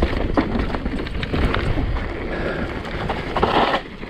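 Mountain bike riding down a rough dirt trail: tyres rolling over dirt and rocks, with constant clicking and rattling from the bike, and wind buffeting the microphone.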